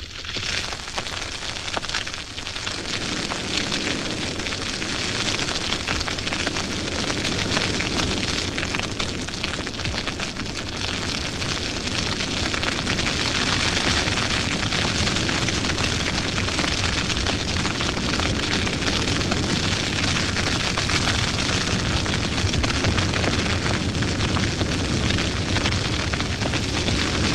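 Dry grass burning in a wildfire: a dense, continuous crackling of flames that builds over the first few seconds and then holds steady.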